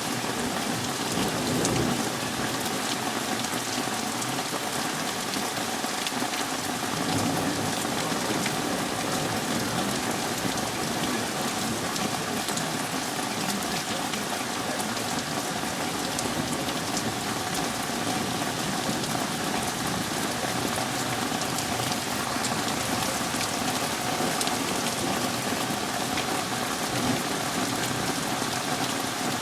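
Heavy thunderstorm rain falling steadily, with low rumbles of thunder, one about a second in and another about seven seconds in.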